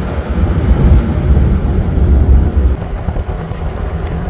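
Wind buffeting the microphone, a loud irregular low rumble, over the drone of a ferry's engines as it crosses the water.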